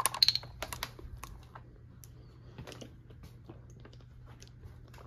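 Light clicks and taps, a quick cluster in the first second and a half and then a few scattered ones, over a steady low hum.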